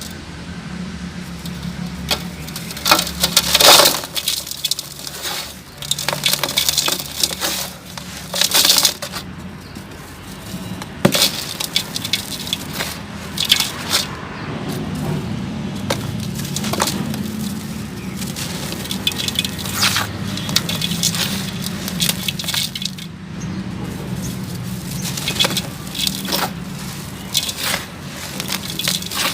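Chunks of sand-cement being crumbled and crushed, giving irregular sharp cracks and gritty crunches, some loud, over a steady low hum.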